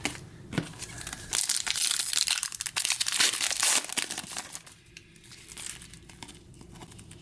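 Wrapper of an Upper Deck hockey card pack crinkling and tearing as it is opened. The crinkling is densest from about a second and a half to four seconds in, then eases to softer handling of the cards.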